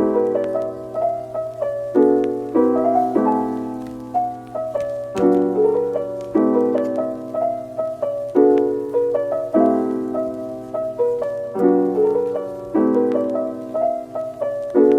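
Soft background piano music: struck chords and a short repeating melodic figure that recur every couple of seconds, each note fading after it is struck.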